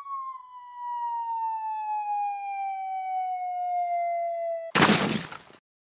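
Intro sound effect: a single whistle-like tone falls slowly in pitch for almost five seconds. A short, loud, noisy crash cuts it off, then the sound stops.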